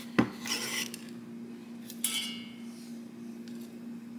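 Kitchen utensil sounds as chopped tarragon is moved into a bowl: a knife tap on the cutting board and a short scrape, then a brief ringing clink of the bowl about two seconds in. A steady low hum runs underneath.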